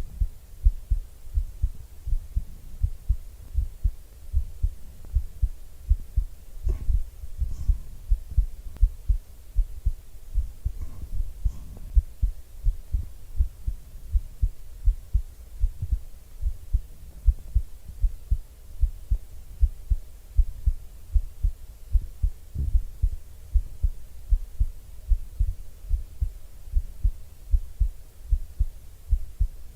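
A person's heartbeat picked up by an ASMR microphone: a steady, even run of soft low thumps in lub-dub pairs. A few faint rustles of the microphone come in about seven and eleven seconds in.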